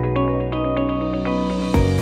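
Background electronic music: the drum beat drops out for a held chord while the treble gradually opens up, then the beat comes back in near the end.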